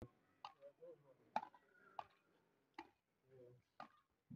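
Badminton rackets striking a shuttlecock in a rally, five sharp pocks a little under a second apart, the loudest about a second and a half in.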